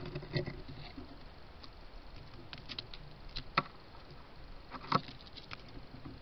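Red squirrel scrabbling close to the microphone: scattered light scratches and sharp taps of its claws, coming in small clusters, the sharpest about three and a half and five seconds in.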